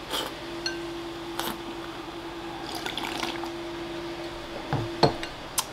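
Sipping and slurping udon broth from a ceramic bowl held to the mouth, with a few light clicks of chopsticks against the bowl and a steady hum underneath.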